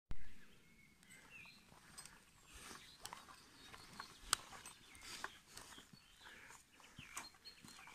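Footsteps crunching irregularly on a stony dirt track, with faint birdsong chirping around them. A short louder burst of noise opens the sound.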